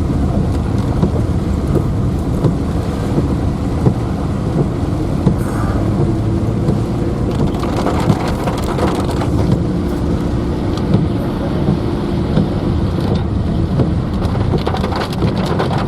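Car driving in rain, heard from inside the cabin: a steady low rumble of engine and tyres on the wet road, with many small ticks of rain hitting the car.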